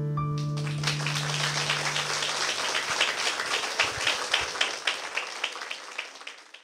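Audience applause breaks out about half a second in over the last held electric-piano chord, which dies away within a couple of seconds. From about three seconds in, a few loud, even claps stand out, roughly three a second, and the applause thins and stops at the end.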